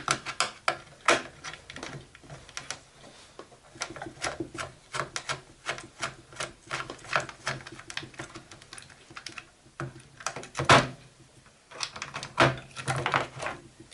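Irregular clicking, tapping and small clatters of hard plastic and metal parts being worked by hand while the motor is removed from the chord organ's case, with a louder knock about eleven seconds in and a burst of clatter near the end.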